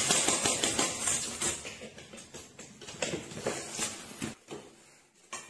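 Metal cat-food bowl with dry kibble clattering and rattling on a tile floor. It is loudest in the first second, then fades and gives way to near silence shortly before the end.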